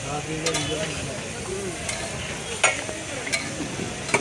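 A metal spatula scrapes and clanks on a large flat griddle (tawa) as fried rice is stirred and scooped into a bowl, over a steady frying sizzle. A few sharp clanks stand out, the loudest about two and a half seconds in.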